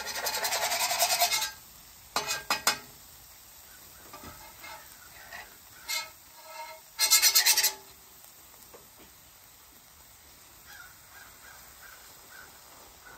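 Metal spatula scraping on a flat-top griddle in several strokes: a long scrape in the first second and a half, short ones around two and six seconds in, and a loud one about seven seconds in. After that it goes quieter, with faint bird calls near the end.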